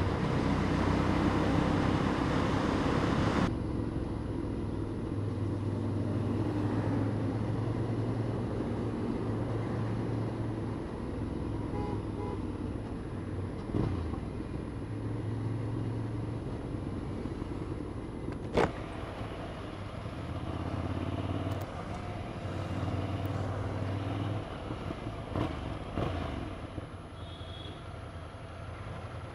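Motorcycle engine running on the move, its hum shifting in pitch and level every few seconds, over road noise. There are a few sharp clicks, the loudest about 18 seconds in.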